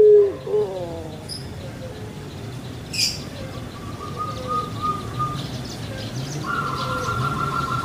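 Barbary dove (puter pelung) finishing a long drawn-out coo that falls in pitch and dies away within the first half-second. After that, faint chirps of other birds, a short sharp chirp about three seconds in, and a thin steady trill starting near the end.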